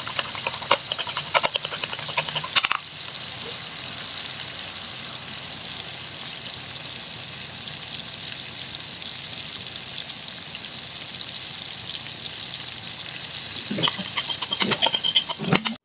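Food frying in hot oil in a pan, sizzling steadily. A utensil scrapes and clatters against the pan for the first few seconds and again near the end.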